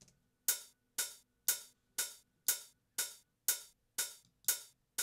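Drum-machine hi-hat loop: an open hi-hat sample struck about twice a second, starting about half a second in. Every other hit is layered with a short closed 808 hi-hat to add a sharper attack (transient), and those hits are louder.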